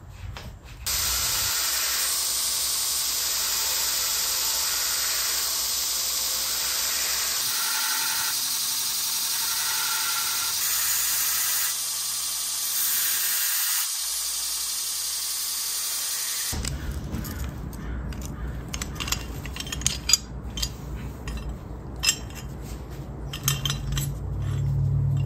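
Belt grinder running with a forged railroad-spike letter opener held against the belt: a loud, steady grinding hiss that shifts in tone a few times. At about 16 seconds it stops, and sharp metallic clinks follow as the steel letter openers knock together.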